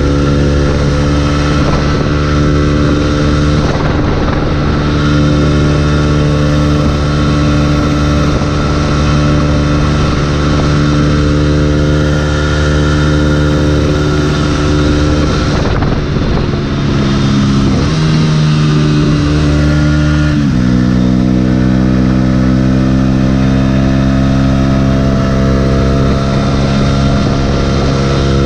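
Yamaha YZF-R125's single-cylinder four-stroke engine running under way at steady cruising revs, with wind and road noise. About two-thirds of the way in the note wavers, then steps down in pitch twice.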